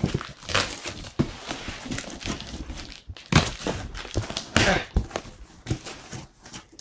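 Cardboard shipping box being handled and opened: irregular knocks, scrapes and rustles of cardboard.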